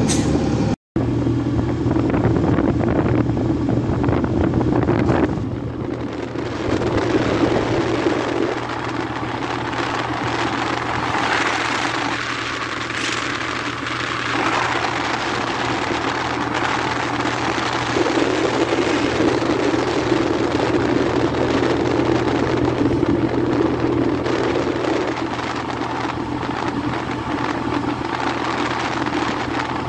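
Steady engine hum with road and wind noise from a moving vehicle. The sound drops out for an instant about a second in.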